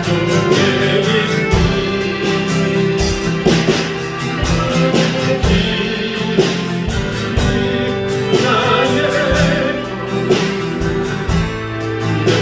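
Praise band playing a worship song, with guitar and a steady drum beat and singing voices over it.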